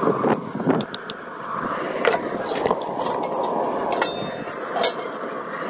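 A steady noisy background hum with scattered sharp clinks and knocks, the loudest about two seconds in and again near the end.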